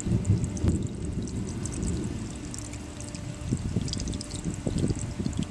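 Water pouring from the end of a PVC air-conditioner condensate drain line and splashing onto wet sludge on the ground, as the clogged line is flushed out with water.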